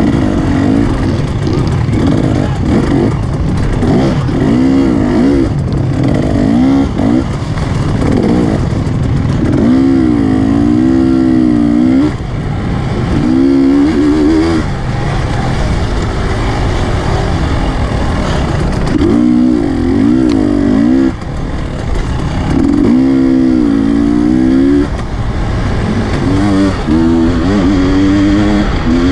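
Two-stroke KTM dirt bike engine at race pace, heard from the rider's helmet. The pitch climbs and falls over and over as the rider works the throttle and shifts, with brief drops in loudness about twelve and twenty-one seconds in, over a steady rush of wind and track noise.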